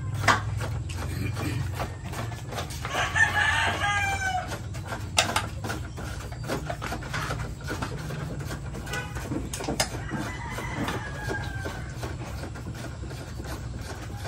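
Rooster crowing: a loud crow about three seconds in and a fainter one around ten seconds. Sharp knocks sound a few times over a steady low hum.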